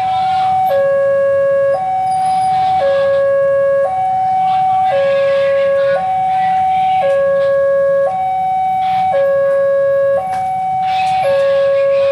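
Railway level-crossing alarm sounding a steady two-tone high–low warning, each tone held about a second and repeating. Under it runs the low engine rumble of an approaching CC206 diesel-electric locomotive.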